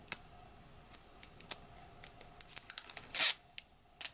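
Clear plastic safety film being peeled off an eyeshadow palette: scattered small crackles and clicks, then a short ripping crackle about three seconds in and another at the very end.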